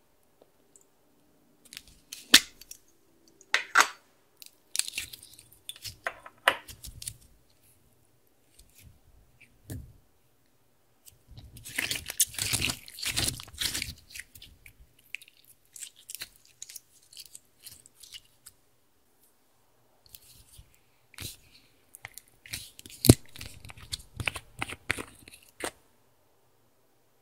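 Hands squeezing and kneading clear slime: sticky squishing with clicks and crackling pops, coming in bunches with short pauses, busiest about halfway through.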